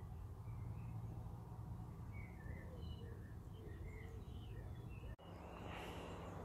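Faint birdsong: scattered short chirps from small birds over a steady low background rumble, breaking off for a moment about five seconds in.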